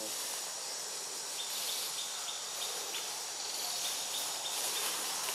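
Steady outdoor insect chorus, a continuous high buzz with faint short chirps repeating several times a second.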